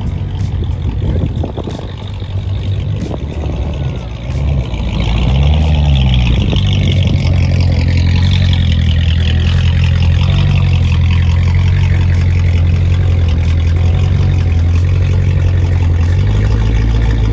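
Car engine and exhaust running loud. The pitch rises briefly about five seconds in, then holds a steady low note for about ten seconds before easing near the end.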